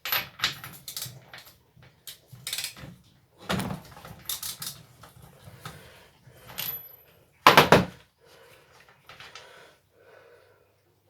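Metallic clicks, knocks and clatter of tools working at a strimmer engine's spark plug, as the plug is taken out to be changed after the engine failed to start. The loudest knock comes about seven and a half seconds in.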